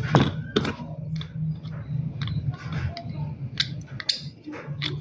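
Irregular clicks and taps of a mini washing machine's parts being handled during repair, over a steady low hum.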